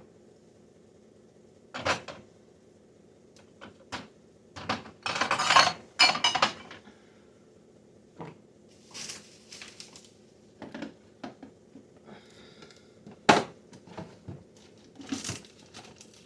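Sauce bottles and jars clinking and knocking as they are handled and set down while a fridge is cleared out, with a louder clattering stretch about five seconds in, over a steady low hum.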